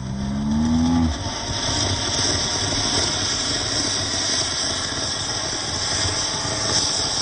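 Anar (flower-pot fountain firework) burning steadily, a continuous hissing spray of sparks. A low pitched drone that rises slightly in pitch runs under it and stops about a second in.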